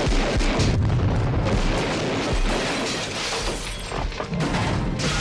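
Action-film soundtrack: a loud explosion boom and rumble with crashing debris and glass, mixed with orchestral score.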